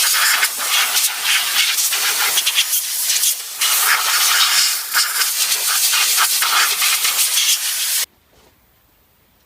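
Compressed-air blow gun hissing as old brake dust is blown out of a front brake caliper, with short flickers in the air blast; it cuts off suddenly about eight seconds in.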